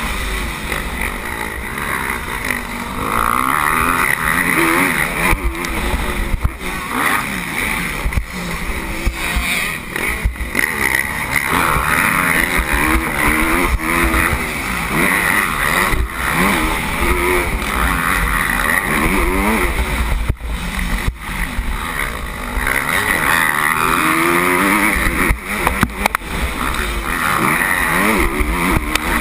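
Motocross bike engine revving up and down again and again as the rider accelerates and shifts around the track, heard from a helmet-mounted camera with heavy wind rumble.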